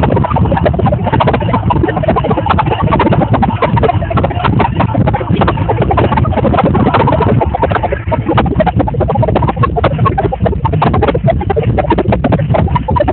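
Large audience cheering and clapping, a loud, continuous din of voices with many hand claps.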